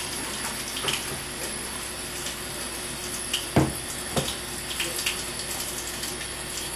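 Kitchen tap running into the sink while hands are washed under it. A few short knocks sound at the sink, the loudest about halfway through.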